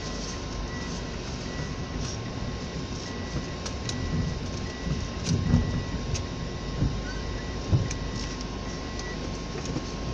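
Inside a car driving on a wet road: low road and engine rumble, with a soft electronic beep repeating a little under twice a second that stops about nine seconds in, and a few light taps.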